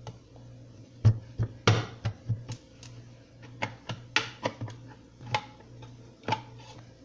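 Irregular clicks and metallic clinks from a tuna can and a hand-held manual can opener being worked by hand, about a dozen separate knocks, a few of them ringing briefly, over a steady low hum.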